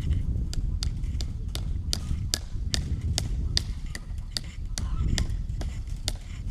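A steady series of sharp clicks, about two to three a second, over a constant low rumble.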